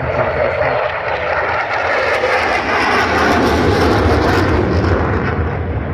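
F-35 fighter jet passing by: a loud jet noise that builds over the first couple of seconds, is strongest in the middle, then eases off near the end.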